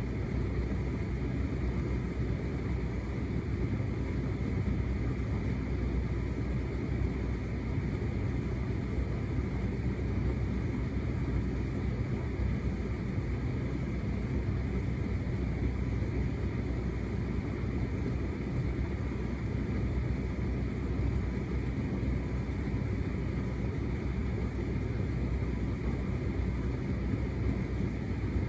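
Hotpoint SUTCD97B6PM condenser tumble dryer running mid-cycle: the motor and drum turning with a steady low rumble and hum that does not change.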